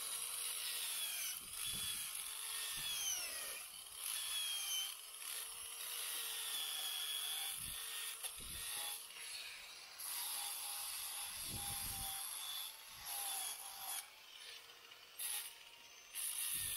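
Die grinder with a sanding drum grinding into fibreglass, opening a crack in a deck mould into a V-groove. Its high whine sags in pitch as the drum bites and recovers as it lets up, with a few short breaks.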